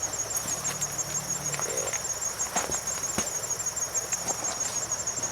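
Insects chirring steadily in a high, rapidly pulsing trill, with scattered light clicks and taps over it.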